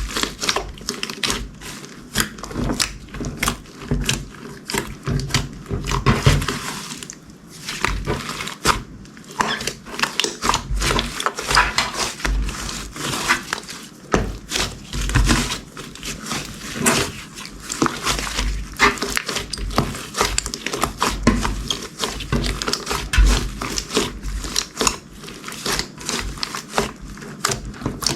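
Slime being squished and mixed by hand with crunchy add-ins: a dense, continuous run of crackles and pops.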